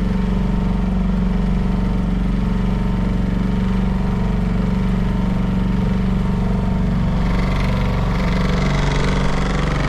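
Small boat's outboard motor running at a steady cruising speed, its note shifting slightly near the end.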